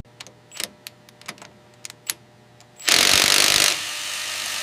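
Scattered sharp mechanical clicks, then about three seconds in a sudden loud hiss that drops after about a second to a steady, quieter hiss.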